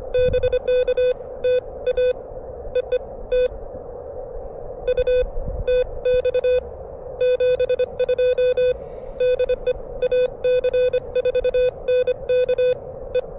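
Morse code (CW) from a ham radio transceiver: a steady mid-pitched tone keyed in quick dots and dashes at about 25 words per minute, coming in several groups with short pauses. Under it runs a constant hiss of band noise from the receiver.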